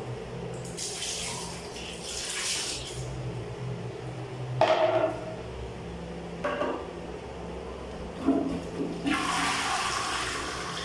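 A one-piece ceramic toilet flushing, with water rushing and swirling into the bowl and the rush growing stronger near the end. A few short knocks come partway through.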